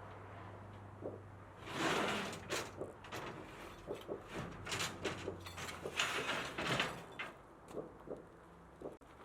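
Steel parts scraping and clanking as they are handled: a loud scrape about two seconds in, then a run of irregular metallic knocks that stops near the end.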